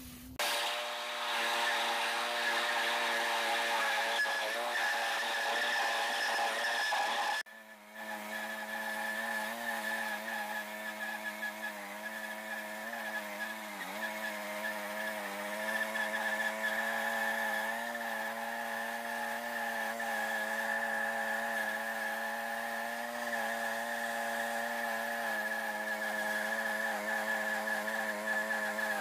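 Wood-Mizer LT10 bandsaw mill's engine running steadily under load as its band blade cuts through a maple log. There is a short break about seven and a half seconds in, then the same running resumes.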